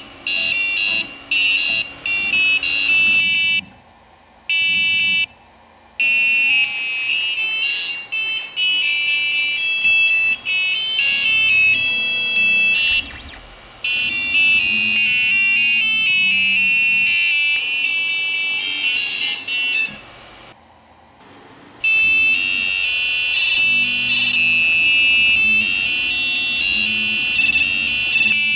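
Ender 3D printer playing a G-code song: its piezo buzzer beeps a fast melody of high notes, with the printer's stepper motors humming lower pitches underneath. The melody breaks off twice for a second or two, about four seconds in and again near twenty-one seconds.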